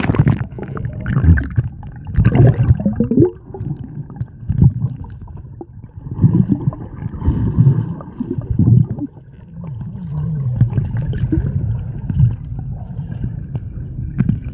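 Muffled underwater sound of swimming: low gurgling and churning water in uneven surges, with a brief splash near the end.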